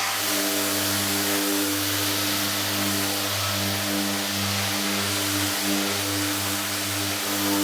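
Power sander running steadily with a hum and a hiss, lightly sanding hardened clearcoat with 400-grit paper to knock down orange peel.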